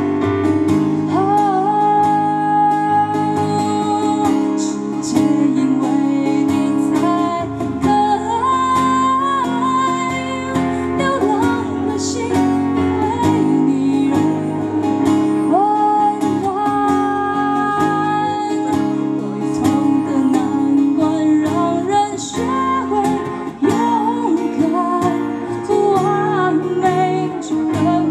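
Live music: an acoustic guitar and a keyboard playing steady chords, with a higher melody line over them that slides between notes.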